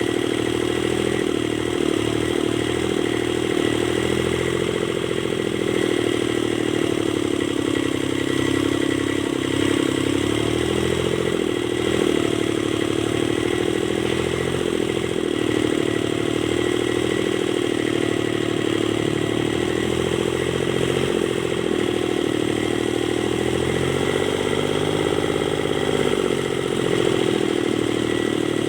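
Kubota D905 three-cylinder diesel engine running continuously, its pitch drifting slightly up and down every few seconds.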